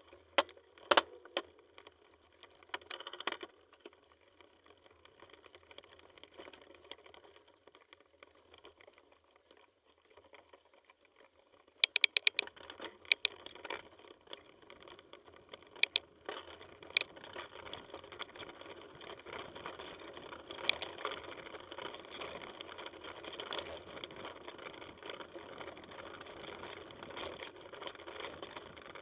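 Mountain bike ridden over a rough dirt singletrack: sharp rattling clacks from the bike over roots and rocks, a quieter coasting stretch in the first half, then steady rolling noise with scattered clatters from about halfway on.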